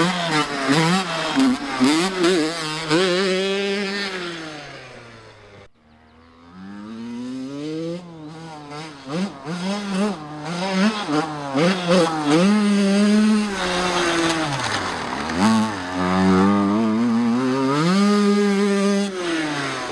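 Suzuki RM80/85 two-stroke single-cylinder dirt bike engine revving hard, its pitch climbing and dropping again and again with throttle and gear changes. The sound fades away about five seconds in, then the revving builds up again and stays loud.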